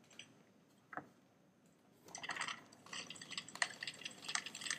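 Domestic sewing machine starting to stitch slowly through the folded waistband, a faint, uneven rattling patter of needle strokes beginning about two seconds in, after a single click about a second in.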